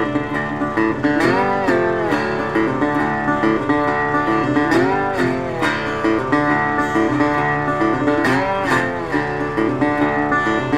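Background country music played on plucked acoustic guitar, with sliding notes every few seconds; an instrumental stretch with no singing.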